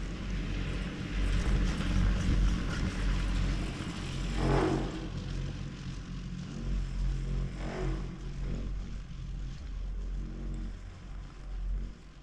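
Chairlift ride: a steady low rumble with wind on the microphone, and two brief swells about three seconds apart near the middle.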